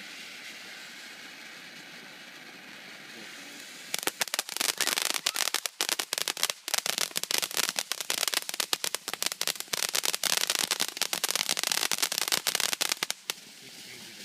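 A string of firecrackers going off: after about four seconds of steady hiss, a rapid, irregular run of sharp pops lasts about nine seconds and then stops.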